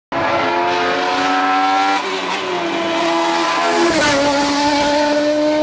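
Naturally aspirated Indy V8 racing engine in a BMW E30 hillclimb car pulling hard at high revs, its pitch climbing steadily. It changes up a gear about two seconds in and again near four seconds, the pitch dropping a little at each shift before climbing again.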